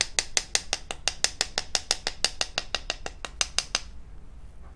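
Rapid, even tapping of a red plastic mesh sieve as flour is sifted through it, about seven light clicks a second, stopping about four seconds in.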